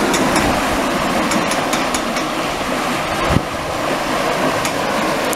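Water rushing and churning as it pours through the open paddles of a canal lock gate, flushing out of the lock into the pound below. One low thump about three seconds in.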